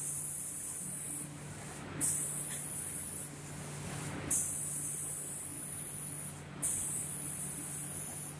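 Spray guns of an automatic paint spraying machine hissing in repeated passes. The spray cuts in sharply three times, every two seconds or so, over a steady low machine hum.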